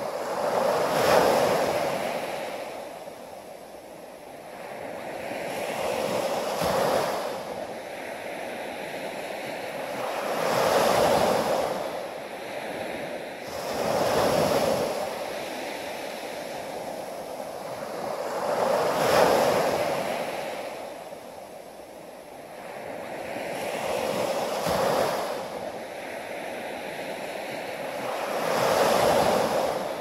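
Small sea waves breaking and washing up a sandy beach, each wash swelling and falling away, about seven in all, one every four to six seconds.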